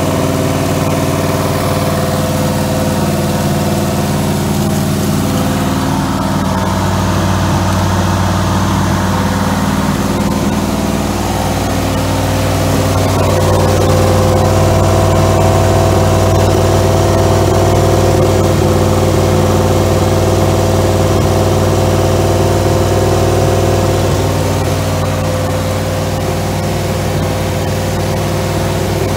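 1963 Oldsmobile Jetfire's 215 cu in aluminium V8 running steadily out of the car on a stand during camshaft break-in, a steady engine drone that gets a little louder for a stretch in the middle.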